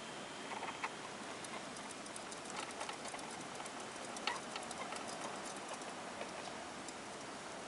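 Light, irregular clicks and ticks from a hamster moving in a plastic exercise wheel, over a faint steady hiss; the sharpest click comes about four seconds in.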